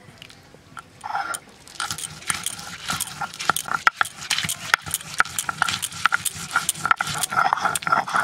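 Stone muller rocked over a flat stone grinding slab (sil-batta), grinding mustard seeds and green chillies into a wet paste: repeated knocking and grating strokes, about two or three a second, starting about a second in. A dog barks and whines at moments, most around the start of the strokes and near the end.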